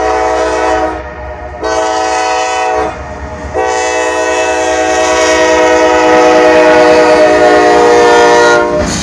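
Norfolk Southern diesel locomotive's air horn, several notes at once, blowing the grade-crossing signal: a blast ending about a second in, a second blast, then a long final blast that grows louder as the locomotive reaches the crossing and stops near the end.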